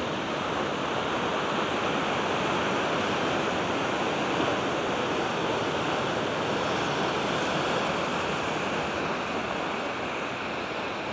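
Ocean surf: a steady, even rushing wash that eases off slightly toward the end.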